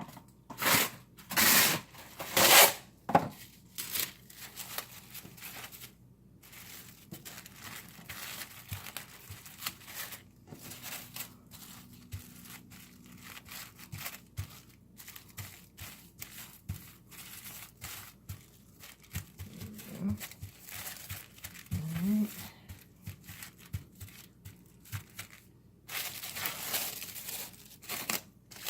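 Press'n Seal plastic wrap being pulled off the roll and torn, with a few loud ripping strokes in the first three seconds, then crinkling and rustling as the wrap is pressed down over a suet mold.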